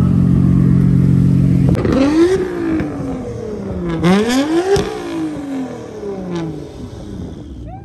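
Nissan Skyline GT-R R32's twin-turbo straight-six running steadily, then revved hard twice, each rev rising and falling, with a third smaller rev after. A sharp crack comes just before the first rev, and the sound fades toward the end.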